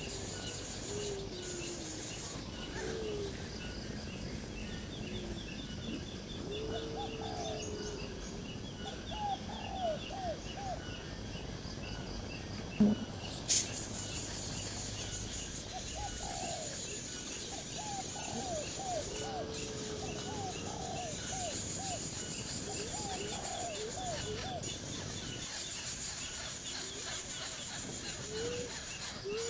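Birds calling: runs of short, low, curved calls, several in quick succession, and a few longer gliding calls, over faint higher chirping. Two sharp knocks come about halfway through.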